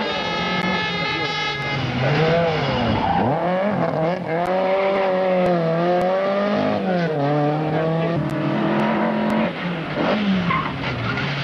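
Rally car engines running hard as several cars pass in turn, revs dropping and climbing again through the bend, with tyre noise as the cars slide and throw up dust.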